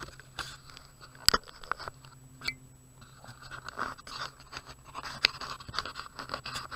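Scraping, crunching handling noise right at the microphone, with scattered sharp clicks, as a camera is fitted and adjusted on a metal detector's shaft.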